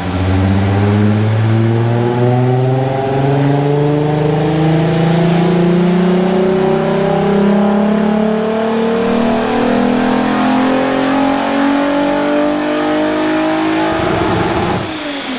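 VW 3.2 VR6 six-cylinder in a Mk4 Golf making a full-throttle dyno pull on its base map: the engine note climbs steadily in pitch for about fourteen seconds. Near the end the throttle comes off and the revs fall away.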